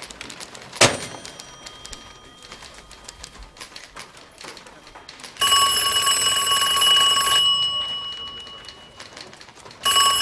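Handset of a rotary desk telephone set down on its cradle with a clack and a brief ding from the bell, then the phone's bell rings: one ring of about two seconds that fades away, and a second ring starting near the end.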